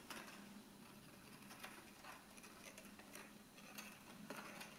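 Near silence, with faint scattered crinkles and small clicks of folded paper being handled and slotted together, over a faint low steady hum.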